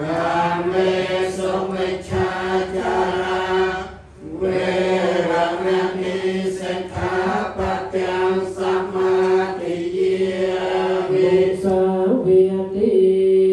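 A group of voices chanting Buddhist Pali verses in unison, on a steady reciting pitch, with a brief pause for breath about four seconds in.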